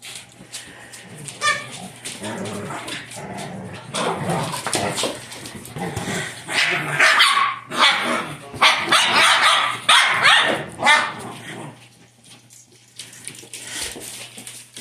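Several dogs play-fighting, a Great Dane puppy and small dogs among them, with barks, yips and growly vocal noise mixed with scuffling. It is loudest in the middle part and dies down near the end.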